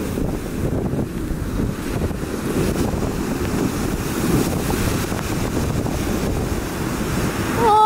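Ocean surf rumbling as heavy shorebreak waves break, with wind buffeting the microphone.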